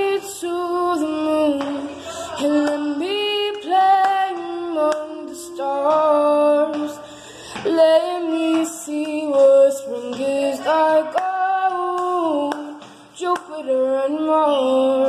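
A female voice singing a slow melody in phrases, with long held, wavering notes and short breaths between them.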